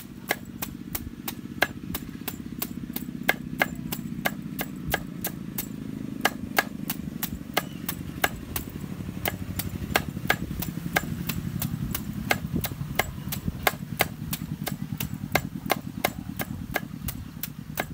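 A knife chopping steadily on a cutting board, about three strokes a second, with a steady low hum underneath.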